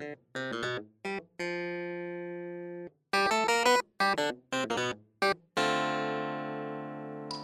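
Intro music: quick runs of bright keyboard-like notes with short gaps between them, and two long held chords that slowly fade.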